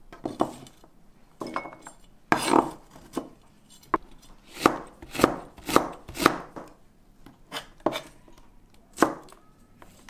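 Chef's knife slicing garlic and then fresh red and green chili peppers on a plastic cutting board: about a dozen separate, unevenly spaced cuts, each a tap of the blade on the board.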